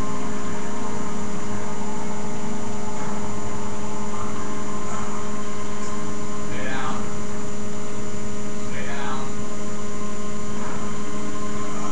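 Steady electrical hum over a constant hiss, with a few brief, faint sounds that sweep in pitch, about halfway in and again near the end.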